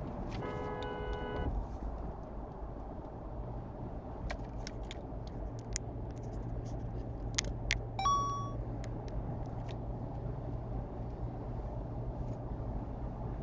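Car horn sounding once for a little over a second, over steady road and tyre noise inside a moving car at highway speed. Later come scattered light clicks and a short beep about eight seconds in.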